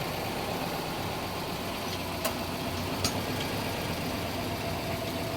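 Subaru Legacy's horizontally opposed engine running steadily, with two short, sharp clicks about a second apart midway through.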